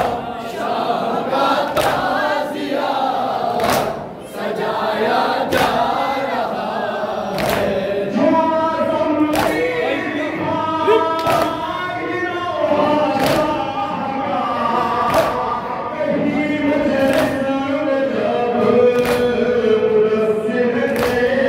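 Shia noha lament sung by a male reciter through a microphone, with a crowd of men chanting along. The mourners beat their chests (matam) in unison: a sharp slap about every two seconds.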